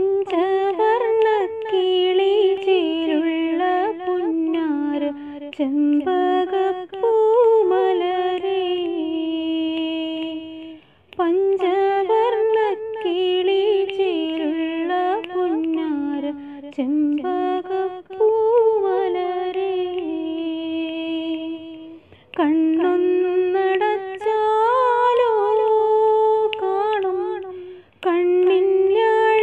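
A woman singing a Malayalam song unaccompanied, in long melodic phrases with wavering, ornamented held notes and short breaks for breath between them.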